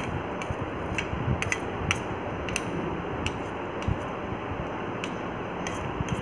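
White rabbit chewing on leaves, with irregular crisp clicks of its nibbling a few times a second over a steady background hiss.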